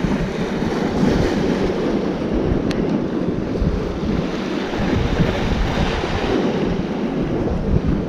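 Strong wind gusting over the microphone, with sea waves breaking on the rocks.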